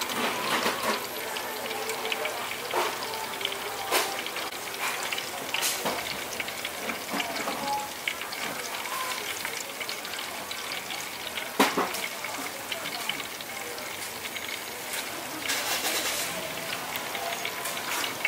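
Jackfruit pieces deep-frying in a wok of hot oil: a steady sizzle and crackle, with a few sharp clicks. The loudest click comes about eleven and a half seconds in.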